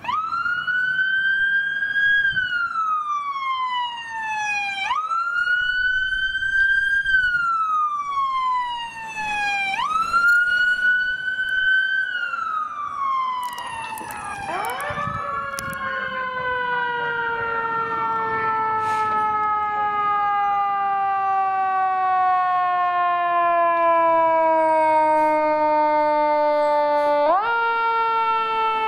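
Emergency vehicle sirens on the wail setting. The first rises over about two seconds and falls over about three, three times over. From about halfway a fire engine's siren takes over with one long, slowly falling tone that jumps back up near the end.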